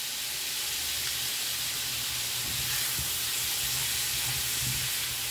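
Sliced smoked turkey sausage sizzling in a skillet, a steady frying hiss, with a spatula stirring the slices in the second half. The cook takes the sizzling for the liquid in the sausage cooking out as it browns and chars.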